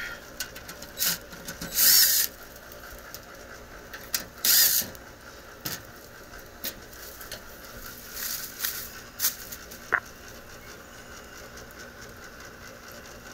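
Hand tools working on a gas pack unit's metal housing: several short bursts of ratcheting and scraping, with a sharp click near ten seconds in.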